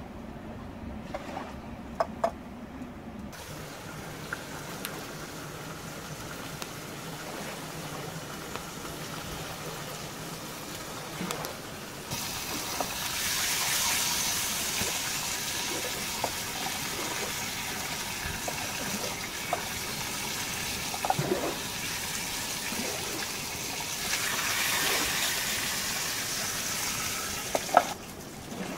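Bacon frying in a pan over a campfire: a steady sizzling hiss that grows louder about halfway through, with a few sharp clicks and taps.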